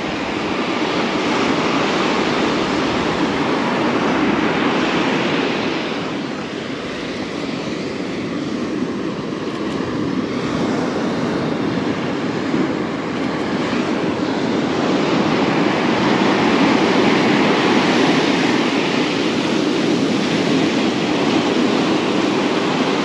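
Ocean surf breaking on a sandy beach: a steady rush of waves that eases a little about six seconds in and builds again in the second half.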